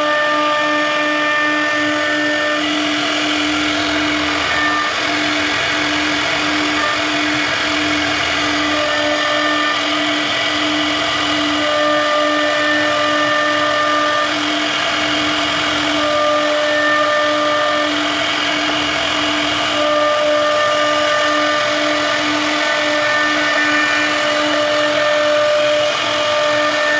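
CNC router carving wood, running steadily with a pulsing whine and higher tones that switch on and off every few seconds.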